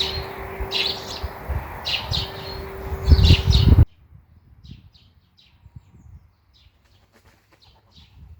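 Small birds chirping again and again. For the first four seconds a loud low rumble and a steady low tone run under the chirps, then both cut off abruptly, leaving only the chirps, much quieter.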